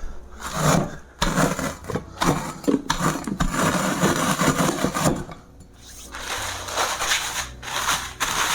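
Crushed Doritos and flour being mixed in a bowl for a chicken coating: irregular rustling and scraping, with several sharp knocks, most of them in the first five seconds, and a short lull about five and a half seconds in.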